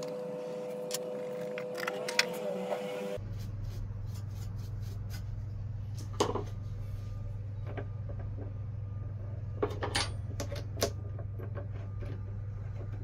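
Sharp metallic clicks and knocks from hand tools being worked on a mini lathe's three-jaw chuck and tool post, with the chuck key turning in the chuck near the end. Under them runs a steady hum that drops abruptly to a lower hum about three seconds in.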